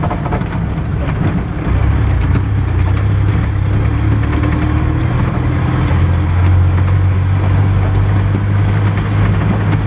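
Vehicle engine running at low speed over a cobblestone street, a steady low hum that gets louder about two seconds in, over constant rough road noise from the tyres on the stones.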